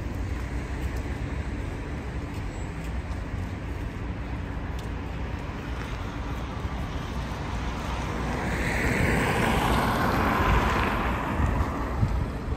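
Outdoor street ambience with a low wind rumble on the microphone; in the second half a car passes on the road, its tyre noise swelling, then fading.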